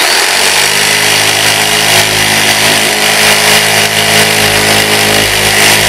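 Corded electric jigsaw switching on abruptly and running steadily, its ordinary single-edged blade pressed against a particleboard surface in an attempted plunge cut. The blade doesn't bore in and only scrapes the surface.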